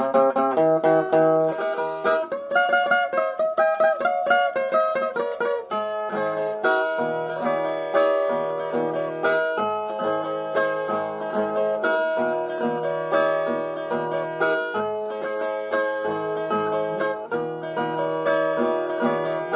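Instrumental break between sung verses: plucked viola caipira playing the melody over a steady, repeating bass line.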